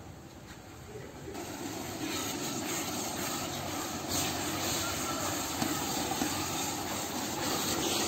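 Tomato and onion masala sizzling and bubbling in a large aluminium pot as it is stirred with a wooden ladle. A steady hiss that grows louder over the first two seconds, then holds.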